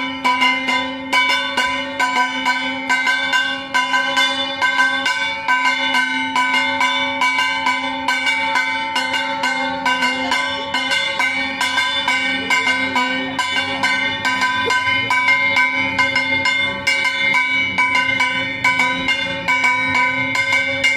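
Metal puja bells rung rapidly and without pause: a quick, even run of metallic strikes several a second over a steady ringing.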